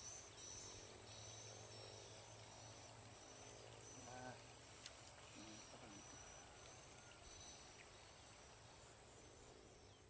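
Faint outdoor ambience: insects keep up a steady high buzz with short chirps repeating through it, and a few faint calls come in now and then.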